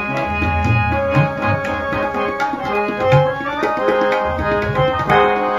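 Tabla and harmonium playing together: deep, booming bass-drum strokes and sharp treble strokes from the tabla under a harmonium melody of held, stepping notes.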